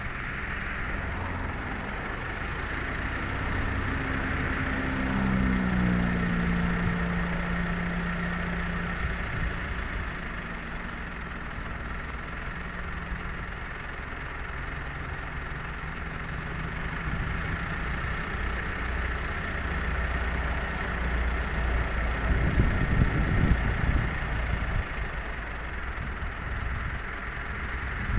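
A motor engine running nearby, its pitch sliding down a few seconds in, with a heavier low rumble swelling about three quarters of the way through, over a steady hiss.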